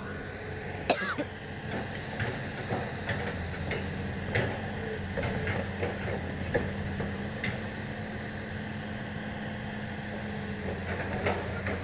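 Excavator's diesel engine running steadily, with scattered knocks, the sharpest about a second in.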